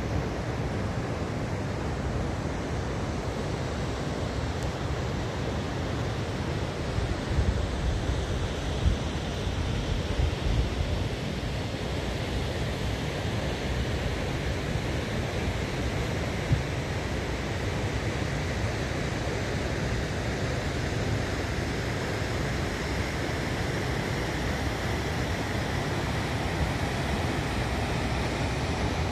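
Steady outdoor wind noise rushing across the microphone, buffeting it in heavier low gusts between about seven and eleven seconds in.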